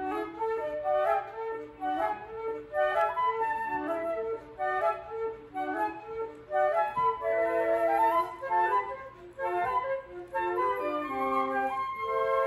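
Flute quartet playing in close harmony: quick, short moving notes at first, then longer held chords in the second half.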